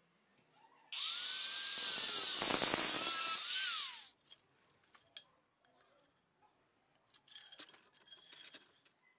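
Power tool, most likely an angle grinder, cutting through a steel tube for about three seconds: a loud, harsh hiss over a motor whine that rises and dips with the load, then falls quickly as the tool is lifted off. Faint metallic scraping and rattling follow near the end.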